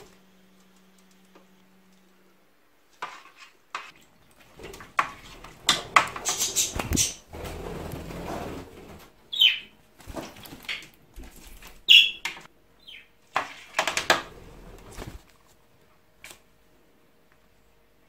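An Indian ringneck parrot bathing on a wet plastic tray: bursts of wing flapping and splashing, with the tray clattering under it, start about three seconds in and die down a few seconds before the end. Two short falling chirps cut in partway through.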